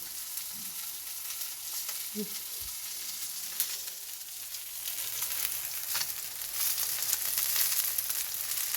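Fish frying in hot oil: a steady sizzle with a few sharp clicks, growing louder about two-thirds of the way through.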